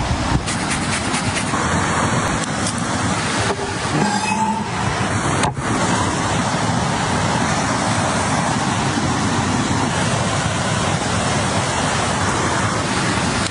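Mountain stream rushing over rocks: a steady, dense hiss of running water that drops out briefly a few times.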